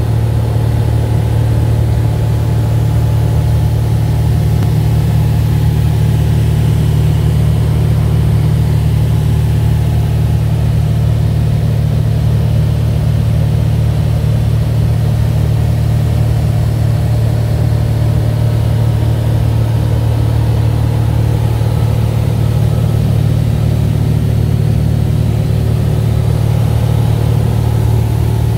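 Single-engine piston airplane's engine and propeller running steadily in level cruise, heard from inside the cockpit as an even, unchanging drone.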